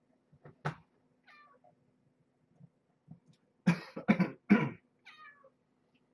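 Two-week-old kittens mewing: two thin, high mews that fall in pitch, about a second in and near the end. A sharp click comes just before the first mew, and three loud rough bursts follow close together around four seconds in, over a faint steady hum.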